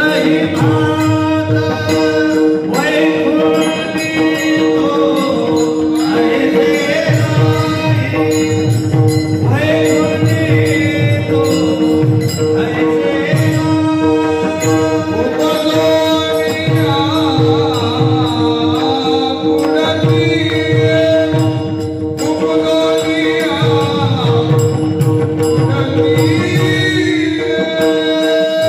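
Warkari bhajan: male voices singing a devotional tune (chal) to the steady clash of many hand-held tal cymbals and the low strokes of a mridang, over a continuous two-note drone.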